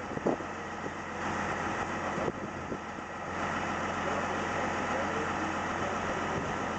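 Motor vehicle engine idling steadily, with a couple of short knocks in the first few seconds.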